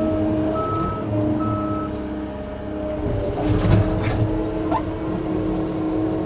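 John Deere 335P skid steer's diesel engine running steadily as the machine works back and forth, its backup alarm beeping a few times in the first two seconds. About halfway through come several rattling, scraping knocks.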